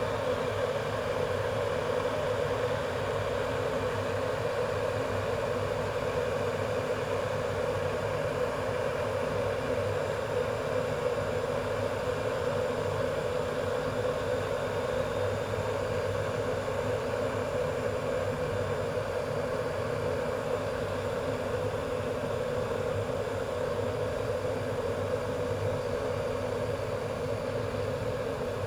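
Electric ceramic kettle boiling water: a steady rumbling, bubbling hiss that holds even throughout.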